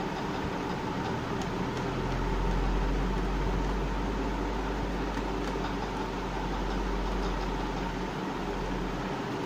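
Steady room hum and hiss, with a low rumble swelling through most of the stretch and a few faint clicks.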